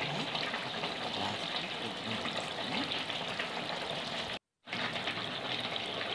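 Chicken gravy curry simmering in a pan on the stove, a steady bubbling and sizzling; it cuts out briefly about four and a half seconds in.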